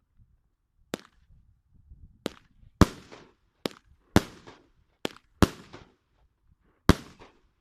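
Fireworks going off: eight sharp bangs at uneven intervals, each trailing off in a short echo.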